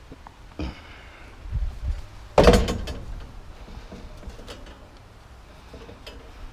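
Scrap items being handled: a few light knocks, then one loud clunk about two and a half seconds in that rings briefly before dying away.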